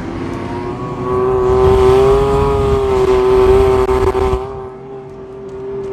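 Off-road vehicle engine running hard under throttle with a steady high whine, louder for a few seconds in the middle, then easing off.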